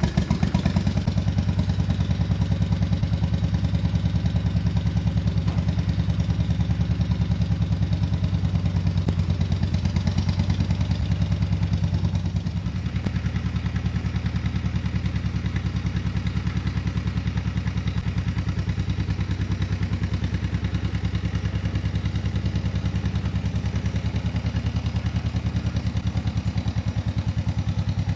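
1956 John Deere 420 tractor's two-cylinder engine running steadily with an even, rapid beat, dropping slightly in level about twelve seconds in.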